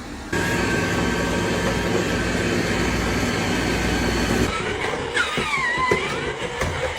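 Roomba robot vacuum running, a loud steady whirring rumble from its motor and brushes that starts suddenly and stops about four and a half seconds in, followed by a few faint gliding tones.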